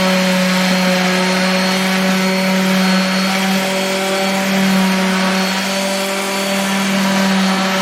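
Electric sander running steadily against the wooden railing top board, sanding it smooth: a continuous, even hum with a scratchy hiss.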